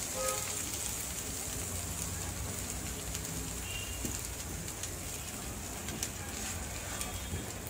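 An egg frying in hot oil on a large flat griddle: a steady sizzle with scattered small crackles and pops.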